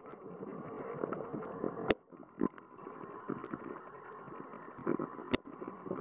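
Water noise heard through a camera submerged in a stream: a steady, muffled rush with scattered small clicks and taps, and two sharp clicks about two and five seconds in.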